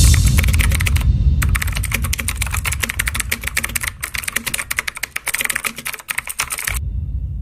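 Rapid, dense clicking, like fast typing on a keyboard. It starts suddenly, pauses briefly about a second in and cuts off abruptly near the end, over a low rumble.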